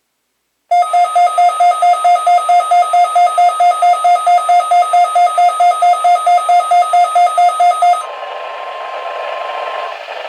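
Weather radio receiver's alarm beeping rapidly, about four beeps a second, for some seven seconds as the weekly test activates it. It then cuts off abruptly to hissy, staticky weather radio audio, with a faint steady tone under the hiss for a couple of seconds.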